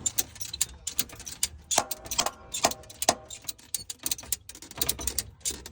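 Ratchet strap being cranked tight: a run of irregular clicks from the ratchet's pawl, with a few short metallic rings near the middle.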